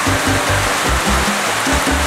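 Background music with a steady low bass beat, over a constant hiss of rain.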